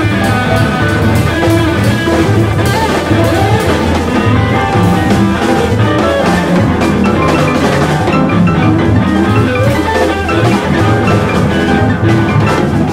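Live jazz quartet playing a blues, with guitar, piano, bass and drums.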